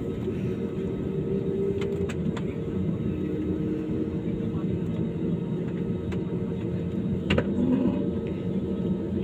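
Airliner engines heard from inside the passenger cabin: a steady rumble with a constant hum, and a few faint clicks, the clearest about seven seconds in.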